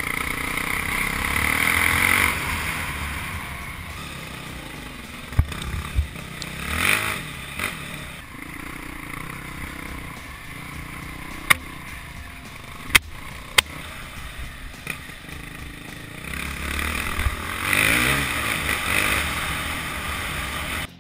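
Husqvarna enduro motorcycle engine revving and easing off as it is ridden over a dirt trail, heard from an onboard camera. It is loudest at the start and again near the end, with a handful of sharp knocks in the middle.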